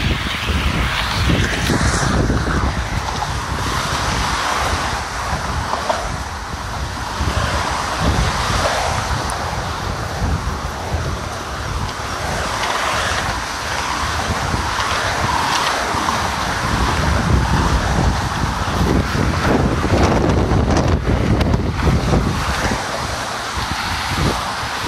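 Strong wind buffeting the microphone, with road traffic passing close by on the adjacent lanes.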